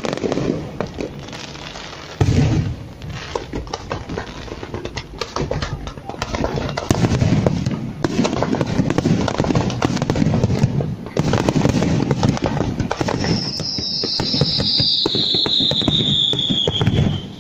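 Aerial fireworks finale: a rapid barrage of shell bursts, deep booms under dense crackling, cutting off suddenly near the end. A high whistle, falling in pitch, sounds over the last few seconds.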